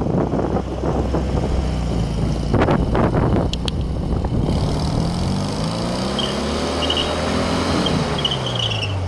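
Volkswagen Beetle's air-cooled flat-four engine running as the car circles close by, its pitch climbing in the second half and falling away near the end. A few sharp knocks come about three seconds in, over wind rumble on the microphone.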